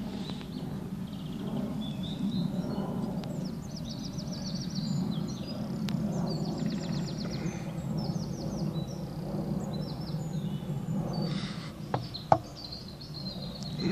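Songbirds singing quick, repeated trills and chirps over a steady low rumble of outdoor background noise. Near the end come two sharp clicks, the second the loudest sound.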